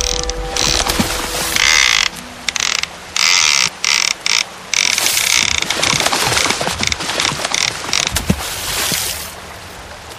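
Fishing reel ratchet clicking as an intro sound effect, in short stop-start bursts, then a longer rasping run that drops away near the end.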